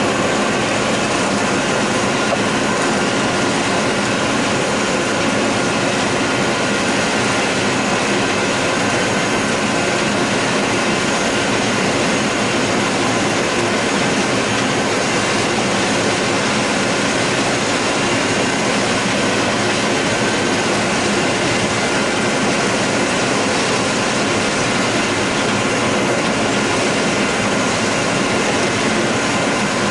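John Deere 9600 combine running steadily while harvesting corn: its diesel engine and threshing machinery make a continuous drone, with several steady whining tones over it.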